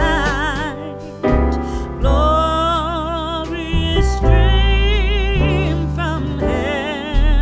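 Background music: a wavering melody line over deep bass notes that change every second or two.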